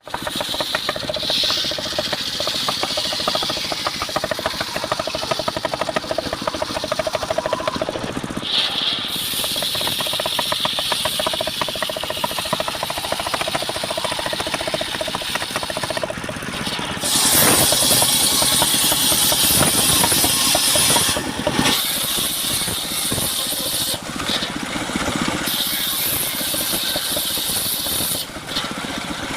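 Engine-driven portable circular sawmill running continuously. It grows louder and hissier for a few seconds past the middle, as the blade works through the timber.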